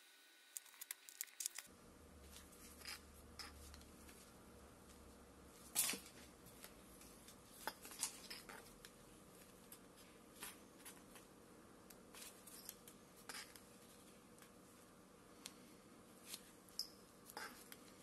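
Faint, scattered clicks and rustles of gloved hands handling thin electrical cable and plastic tubing, with the sharpest tick about six seconds in.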